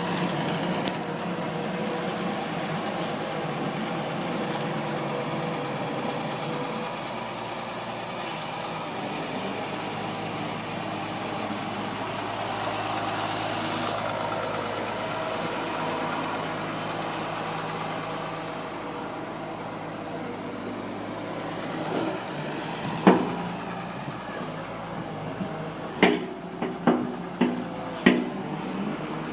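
Komatsu PC220LC-3 excavator's diesel engine running steadily at idle, with several sharp knocks near the end.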